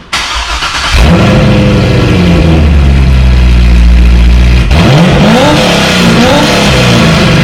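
The 6.0 L LS2 V8 of a 2007 Corvette, fitted with a full Corsa exhaust with long-tube headers, starts: about a second of cranking, then it catches and settles into a loud, deep idle. About five and six seconds in, the throttle is blipped twice, the revs sweeping up and back down.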